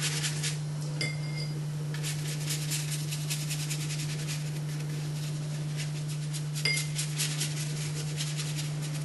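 A watercolour brush stroking and scrubbing across paper in quick, fine strokes, with two brief light clinks, about a second in and again near seven seconds, over a steady low hum.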